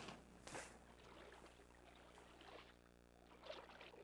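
Faint splashes of a wooden canoe paddle dipping and pulling through calm lake water as the canoe is pushed off, with one sharper knock or splash about half a second in, over a low steady hum.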